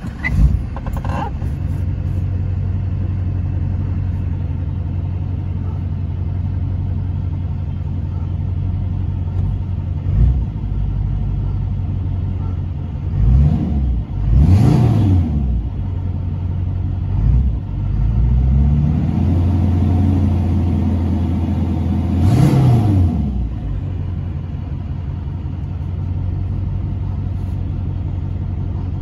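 LLY Duramax 6.6-litre V8 turbodiesel starting up and running, with a few brief revs in the middle that rise and fall in pitch before it settles to idle.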